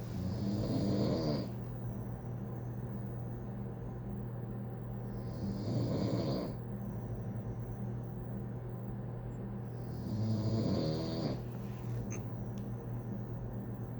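A person snoring: three loud snores about five seconds apart, each lasting a second or so with a fluttering rattle.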